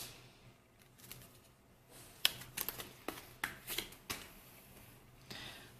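Paper envelope being opened and thin photocards slid out and handled: a run of sharp paper clicks and snaps starting about two seconds in, then a short rustle near the end.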